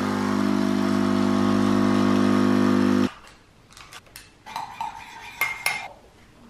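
Capsule coffee machine's pump buzzing steadily as it brews coffee into a mug, then stopping abruptly about three seconds in. After that come a few light clinks of a stainless steel milk jug being picked up and handled, one of them ringing briefly.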